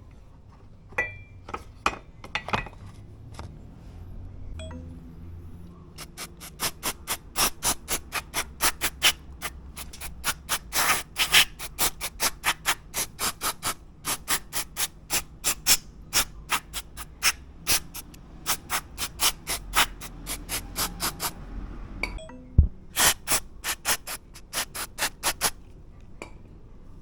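Rapid back-and-forth rubbing strokes, about three a second, as a part of the motorcycle's rear brake caliper is scrubbed clean. The scrubbing comes in two runs with a short pause and a thump between them, after a few light clicks at the start.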